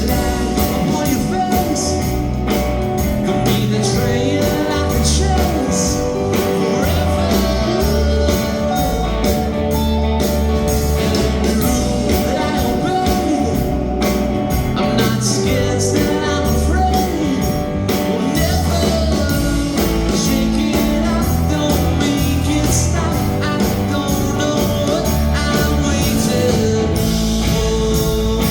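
Live rock band playing a song, with guitar to the fore and a gliding lead melody line over a steady bass and beat.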